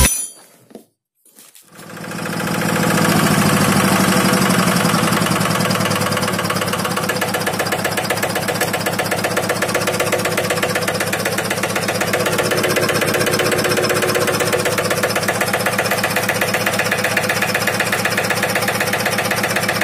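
Yanmar TF65H-di single-cylinder diesel engine running steadily with an even, rapid firing beat. It comes in about two seconds in and settles into steady running. It now runs again after its stuck injector nozzle was cleaned and refitted.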